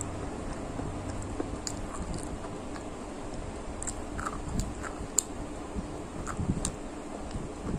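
Close-miked biting and chewing of a hard, dry stick, with scattered sharp crunches and snaps.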